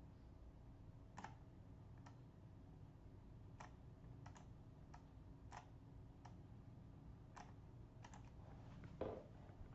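Faint, irregular clicking of a computer mouse, about a dozen single clicks a second or so apart, with one louder dull knock near the end.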